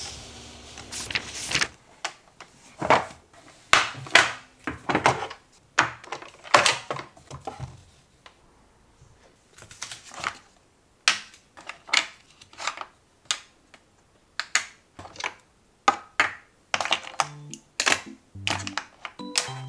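Small cosmetic compacts and pots being picked up and set down in a plastic organiser tray and on a glass tabletop: a run of irregular sharp clicks and knocks, with a short pause about halfway through.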